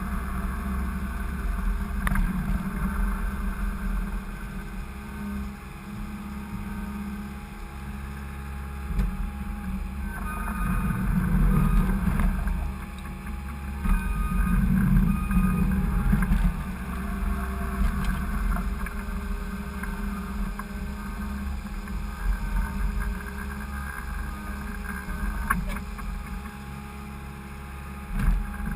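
Skid steer engine running steadily, getting louder for a few seconds at a time about ten and fifteen seconds in.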